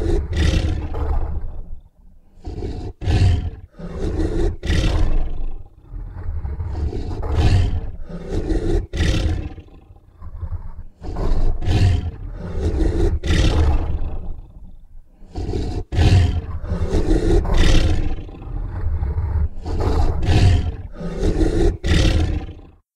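Dragon roar sound effect: a string of deep, loud roars and growls, one after another with short breaks between them.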